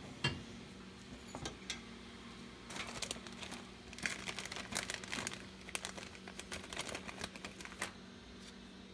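Yellow plastic chemotherapy-drug bag crinkling as gloved hands handle it, in crackly spells from about three seconds in until near the end. A single knock comes just after the start, and a faint low hum runs underneath.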